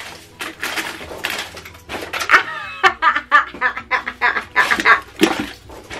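A woman laughing in short breathy bursts while her hands rummage through the packing fill in a cardboard box.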